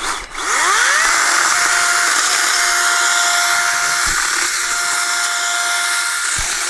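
Craftsman 60V battery-powered electric chainsaw spinning up with a rising whine about half a second in, then running at full speed with a steady high whine.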